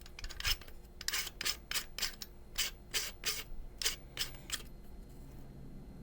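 Shotgun barrel nut being spun on by hand: a run of short metallic scraping clicks, about three a second, that stops about four and a half seconds in.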